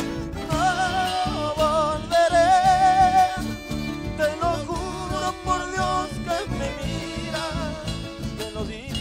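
Latin band music: a wavering melody with strong vibrato, most likely a singer's held notes, over a steady pulsing bass beat. The melody swells loudest about two seconds in.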